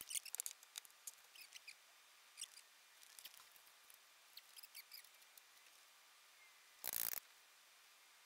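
Faint, scattered clicks and light taps of hand work on a truck's engine, with one short louder scrape or rustle about seven seconds in.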